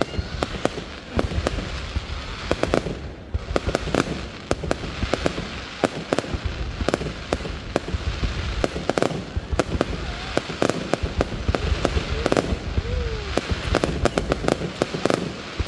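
Aerial fireworks display: a dense, irregular run of bangs and crackling bursts with no let-up.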